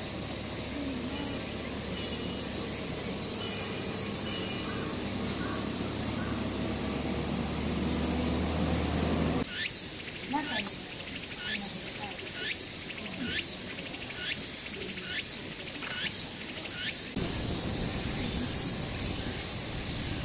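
Steady high insect buzz of a summer outdoor enclosure. In the middle stretch a short falling chirp repeats about once a second, eight times or so.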